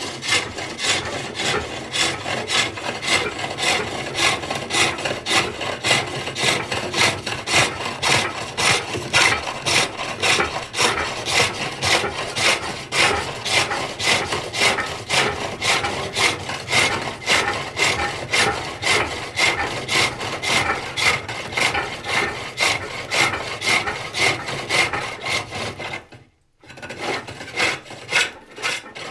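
Hook tool cutting into the hollow of a wooden box spinning on a treadle-driven pole lathe, a steady rhythm of short scraping cuts with each stroke of the lathe. The cutting stops for about a second near the end, then starts again.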